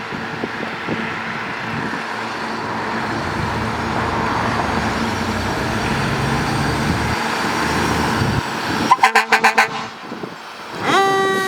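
2019 Ferrara Inferno fire engine approaching, its engine and road noise steadily growing louder. About nine seconds in, a rapid burst of about six short air horn blasts. Just before the end a siren rises in pitch and settles into a steady tone.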